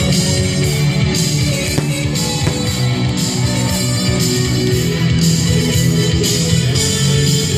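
Loud rock music with guitar and drums, keeping a steady beat.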